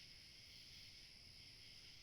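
Faint, steady chorus of night insects trilling without a break, a high continuous shimmer of summer-night ambience, with a low rumble underneath.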